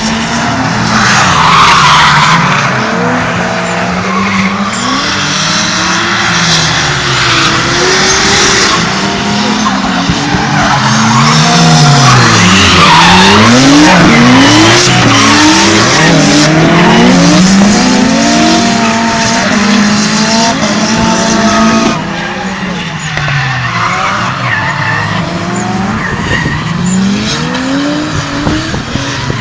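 Drift car engine revving hard and rising and falling rapidly in pitch, with tyres squealing as the car slides. The sound drops abruptly in loudness about two-thirds of the way through, then carries on with more revving and squealing.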